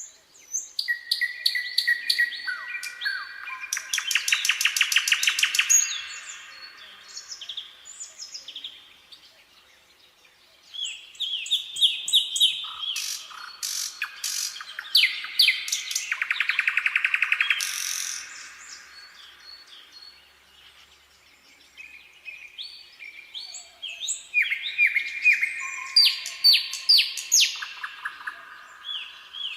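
Nightingale singing in three loud bouts of varied whistles and fast runs of rapidly repeated notes, with pauses of a few seconds between the bouts.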